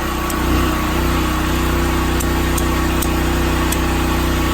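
A Duromax 12,000-watt portable generator's engine running steadily under load, a constant hum that steps up slightly about a second in.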